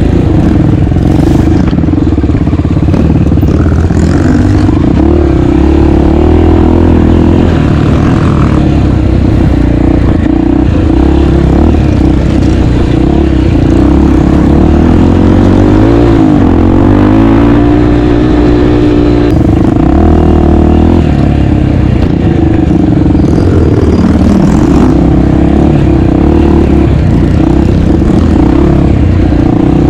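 250 cc dirt bike engine running under riding load, its pitch rising and falling as the throttle is worked, with a marked dip and climb about halfway through.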